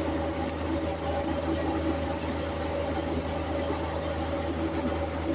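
A steady machine hum: a constant low drone with a few steady pitched tones over it, running unchanged throughout.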